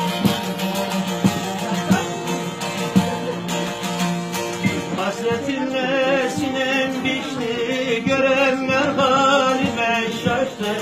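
Bağlama (Turkish long-necked saz) playing the instrumental break of a Turkish folk song. Plucked notes run over a steady low drone at first, and about halfway through the playing turns busier and more ornamented.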